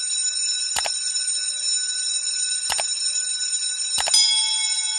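Outro sound effects: a steady high ringing chime, broken by three sharp clicks. Just after the last click a new bell tone sounds, like a subscribe-button notification ding.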